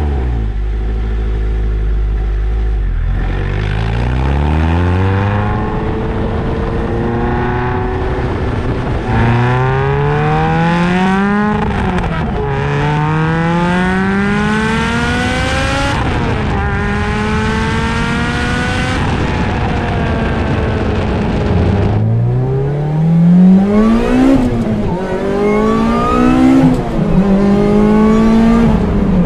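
Supercharged four-cylinder engine of a Lotus Exige S with an aftermarket exhaust header, pulling hard through the gears: the engine note climbs and drops sharply at each of about three upshifts. Near the end it eases off, then revs up again with several short sharp blips.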